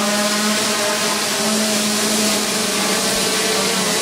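Hubsan H501S quadcopter hovering, its four brushless motors and propellers running steadily: a held pitch over a loud, even rushing hiss.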